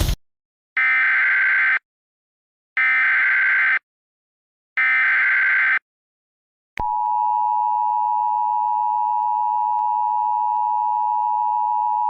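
Emergency Alert System tones: three one-second bursts of buzzy data-header tones with a second of silence between each, then the steady two-tone attention signal coming on about seven seconds in.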